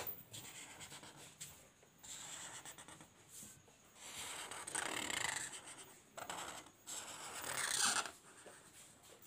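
Black marker pen being drawn across paper in a series of writing strokes, the loudest about five seconds in and again near the end.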